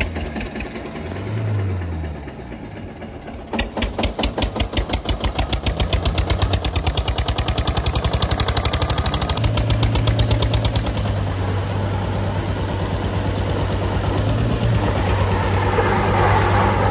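Eicher 242 diesel tractor engine running under load in distinct firing beats that quicken from about three and a half seconds in as it is revved hard, settling into a steadier drone. The Tata Sumo's engine strains against it, and its wheels spin on loose dirt near the end.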